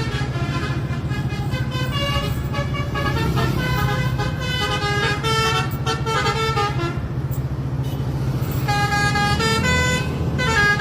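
Basuri V3 telolet multi-tone horn on a Mercedes-Benz OH 1526 NG bus playing a fast koplo-style melody of short stepped notes, breaking off for about a second and a half some seven seconds in before starting again. A low steady engine hum runs underneath.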